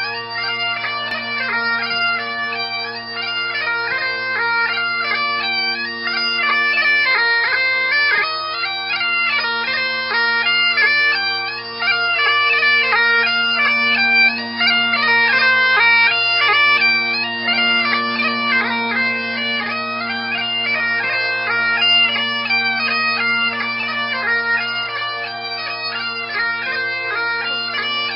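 Bagpipes playing a tune: the drones hold one steady low chord while the chanter plays a melody above it in quick steps, with rapid ornamenting notes.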